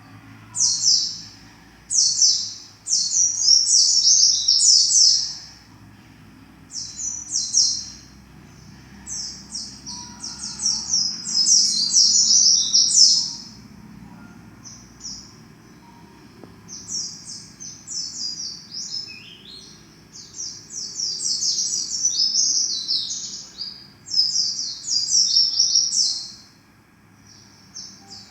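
A home-raised white-eye (pleci) singing phrase after phrase of fast, high twittering, each run lasting one to a few seconds with short pauses between; a young bird practising its song.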